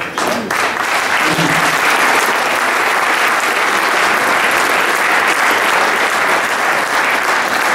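Audience applauding, a dense steady clapping that starts just after the beginning and holds throughout.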